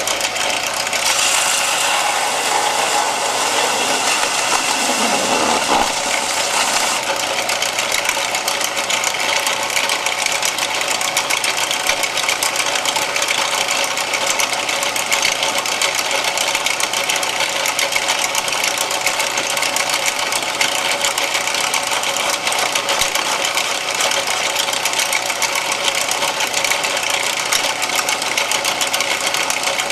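Bench belt sander's electric motor and abrasive belt running steadily with a fast, even whirr, harsher and hissier for the first several seconds, then settling to a constant drone.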